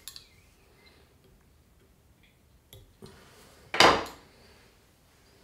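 A small metal fly-tying tool set down on the bench, one sharp clatter about four seconds in, after a few faint clicks.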